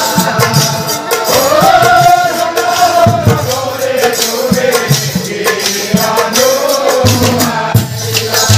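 Nagara naam, Assamese devotional folk singing: a male lead voice sings long phrases that bend up and down in pitch, while drums and jingling percussion keep a steady beat underneath.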